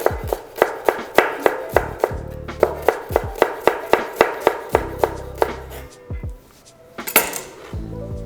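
Knife chopping a shallot on a cutting board in quick, even strokes, about three a second, stopping about six seconds in; one louder knock follows about a second later.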